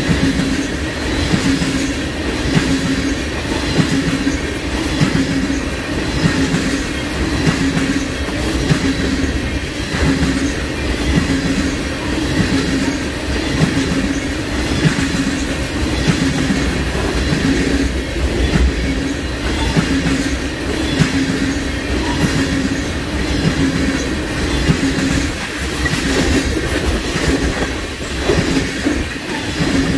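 A Norfolk Southern freight train's cars rolling steadily past, wheels clacking over the rails again and again, with a steady tone running under the rumble.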